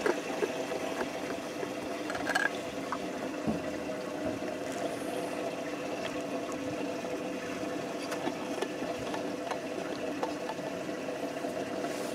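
A small electric motor on a fishing boat hums steadily, with a few faint clicks and knocks.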